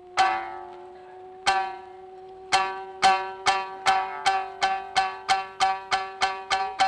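Shamisen struck with a plectrum: a few spaced notes, then quickening strokes at about three a second. Under it a singer holds one long note that stops shortly before the end.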